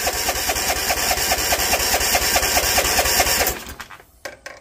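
The Bolens ST110 garden tractor's engine being cranked over by its starter, a steady rhythmic chugging of about seven beats a second that stops about three and a half seconds in. The cranking has a hesitation that the owner hears as wrong, suspecting a faulty compression release or valves far out of adjustment.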